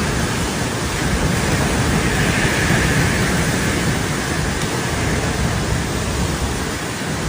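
Steady, loud rushing noise of stormy weather, with no pitch or rhythm.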